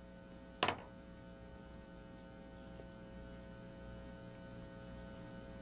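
Steady low electrical hum, with one short sharp click a little over half a second in.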